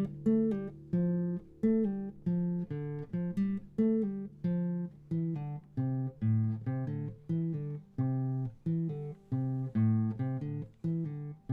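Instrumental music: an acoustic guitar playing a picked melody, with a fresh note or chord plucked about two to three times a second, each ringing and fading.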